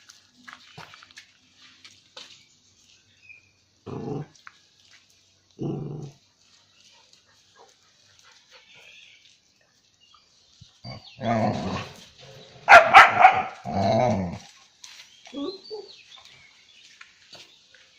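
A dog growling and barking: two short, low growls, then a louder flurry of barks and growls past the middle.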